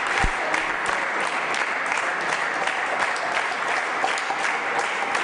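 Audience applauding steadily in a hall: many hands clapping at once in a dense, even patter.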